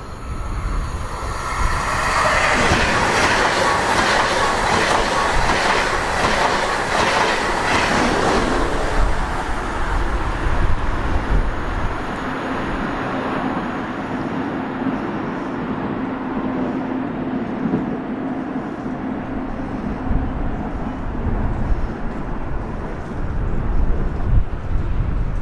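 A train passing at close range, its wheels clacking in an even rhythm over the rail joints, loudest in the first several seconds. It then settles into a quieter, steadier running sound with a low hum.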